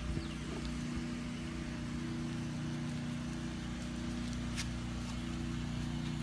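Steady low mechanical hum, like a motor or engine running, with a couple of faint clicks.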